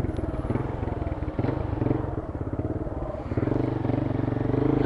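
A motorcycle engine running steadily at low revs with a fast pulsing beat, picking up a little about three seconds in.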